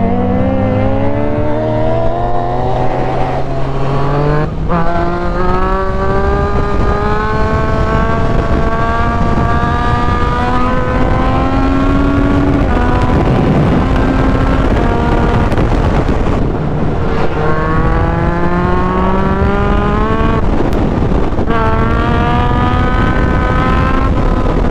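2016 Yamaha MT-09's three-cylinder engine with a full aftermarket exhaust, accelerating hard: the note climbs again and again, broken by quick upshifts, over steady wind rush.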